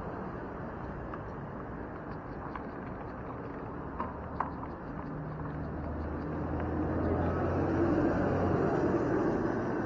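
Road traffic and wind noise heard from a moving bicycle, with two short sharp clicks about four seconds in. Over the second half a motor vehicle's engine hum grows louder as it passes close by, peaking near the end.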